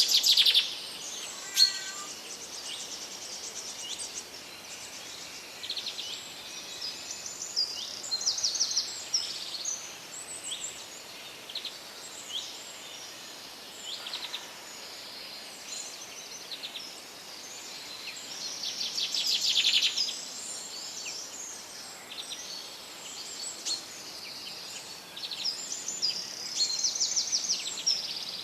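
Several songbirds singing and calling in woodland: overlapping chirps, whistled phrases and fast trills, with louder rapid trills about a second in and again near the middle, over a faint steady background hiss.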